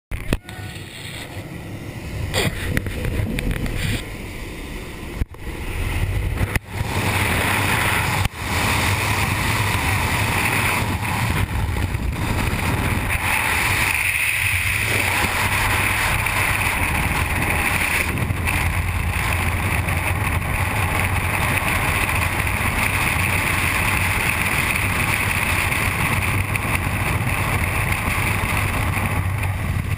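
Freefall wind rushing over a helmet-mounted GoPro during a skydive, a loud steady roar from about eight seconds in. Before that the noise is uneven, with several abrupt changes.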